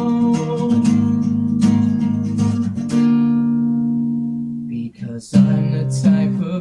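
Instrumental break in a pop song, with strummed guitar chords. About three seconds in, a chord is left ringing and fades away. Near five seconds the music drops out briefly, then comes back in full.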